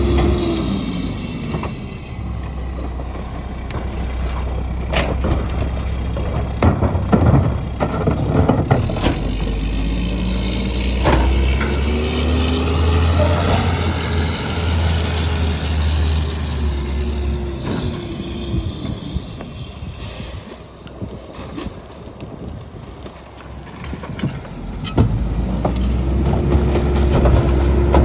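Mack MR garbage truck with a McNeilus rear loader body. Plastic trash carts bang against the hopper, then the truck's engine climbs in pitch in steps as it pulls away through the gears. Near the end the engine holds a raised tone while another cart knocks against the hopper at the next stop.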